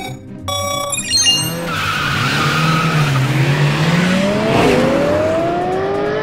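Start-signal beeps, a short one then a longer one, then cartoon race cars launching off the line: tyres squealing and engines revving up, their pitch climbing as the cars speed away.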